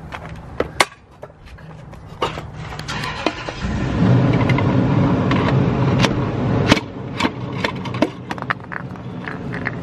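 Scattered sharp metal knocks and scrapes as a broken piston is worked up and pushed out through its cylinder bore in the blown 3.5-litre V6 block of a 2007 Lexus IS350. A low rumble sets in about three and a half seconds in and is the loudest sound from then on.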